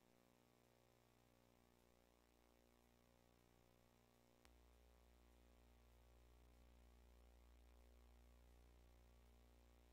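Near silence: a faint steady electrical hum in the sound feed, with a single click about halfway through, after which the low hum is slightly louder.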